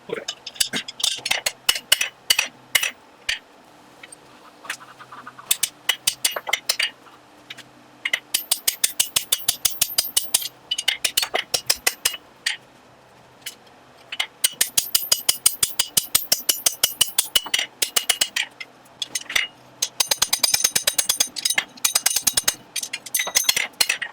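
A blacksmith's hand hammer striking hot iron on an anvil in quick runs of blows, about four a second, each blow ringing brightly, with short pauses between the runs.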